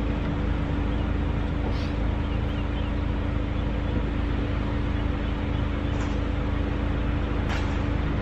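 Steady low mechanical hum with a constant drone, and a couple of faint clicks.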